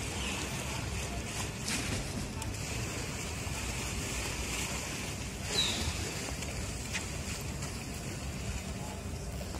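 Quayside ambience: steady wind noise rumbling on the microphone, with a short falling high-pitched squeak about halfway through.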